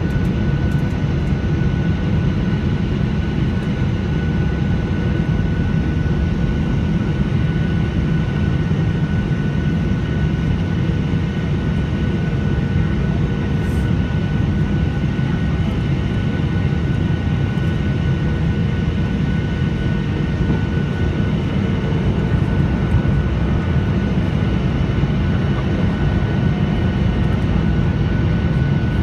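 Steady cabin roar of a Boeing 737-800 on approach, heard from a window seat over the wing: the CFM56-7B turbofans and airflow make a dense low rumble, with a few faint, steady whining tones above it.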